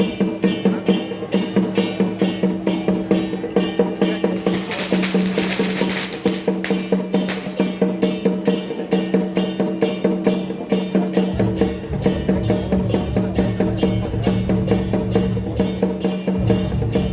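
Percussion-led music with a fast, even beat of about four strikes a second over steady held tones. A bright, hissing crash swells for a couple of seconds about five seconds in, and a deep low part comes in about eleven seconds in.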